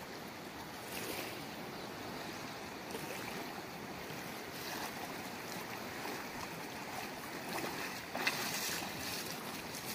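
Steady rush of river water flowing through shallows, with wind buffeting the microphone. Near the end, splashing of feet wading through shallow water.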